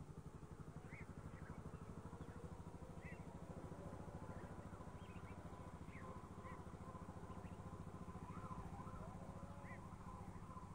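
Faint engine running steadily, with short high chirps scattered through it.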